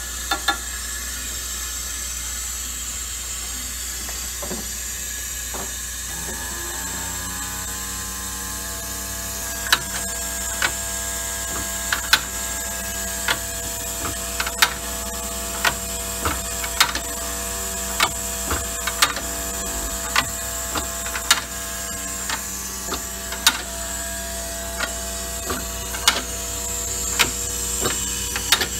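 Automatic needle seeder running over plug trays: a steady air hiss, with a motor hum that rises and settles about six seconds in, then sharp mechanical clicks roughly once a second as the seeder cycles.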